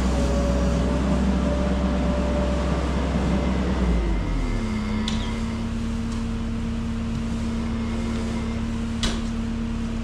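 Front-end loader engine running, then throttled back about four seconds in: its pitch falls and it settles into a steady idle.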